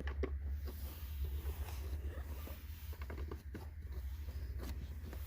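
A screw being turned by hand with a Torx screwdriver: a run of small, irregular clicks and scrapes, over a low steady hum.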